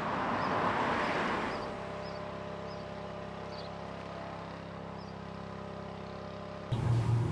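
A rush of noise that fades within the first second and a half, then a steady engine-like hum made of several even tones, with a faint high chirp repeating about every half second. Near the end it cuts abruptly to a louder, lower hum.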